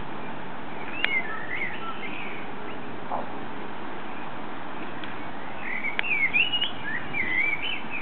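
Common blackbird singing two fluted, warbling phrases, one about a second in and a longer one from a little before six seconds, each opening near a sharp click, over a steady background hiss.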